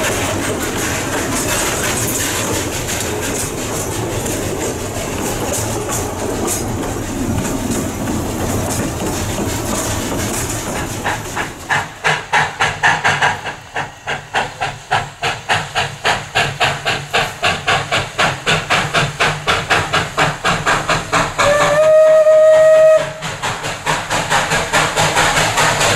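A steady rumble of a train running, heard from aboard a coach. Then the 2-6-6-0 Mallet steam locomotive No. 204 working with a regular beat of exhaust chuffs, a few a second, and one whistle blast about a second and a half long near the end.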